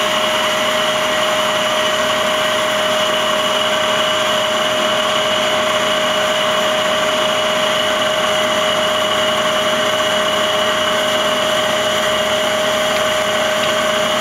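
Traub TNS-26-DGY CNC turning center running steadily: an even whine with a fainter, higher tone above it, over a hiss of machine noise.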